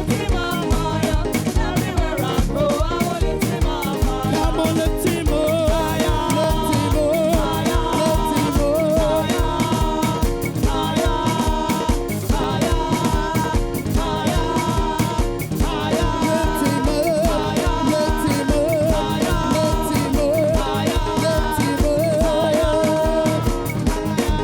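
Upbeat gospel praise music played by a live band, with a steady drum beat and wavering sung lines repeating throughout.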